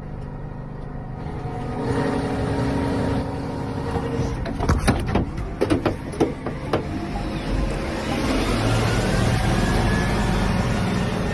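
Big rig truck running with a steady rumble, a cluster of sharp clicks and knocks in the middle, and a faint rising whine in the later part.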